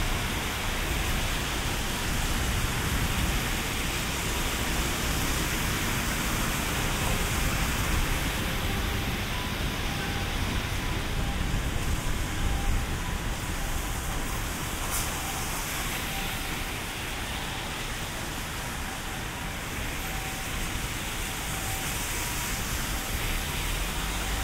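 Steady storm rain falling on a city street: a dense, even hiss, with traffic noise underneath.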